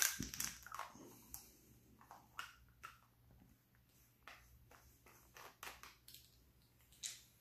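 Faint, scattered clicks and taps of a green multi-bit ratcheting screwdriver being handled, its plastic bit-storage cap turned on the threaded handle.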